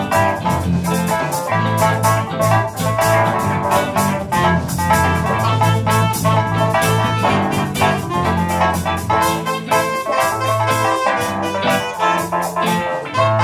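Instrumental jam-session music: a steady drum beat under a bass line and melodic instruments.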